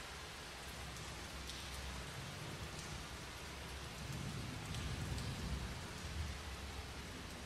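Steady rain falling, with scattered faint drop ticks and a low rumble that swells about four seconds in.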